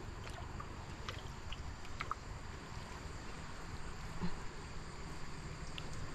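Steady outdoor background noise with a low hum, a few faint short chirps, and one brief knock about four seconds in.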